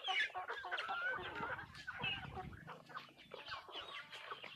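A flock of chickens feeding together, with many short clucks and chirps overlapping throughout.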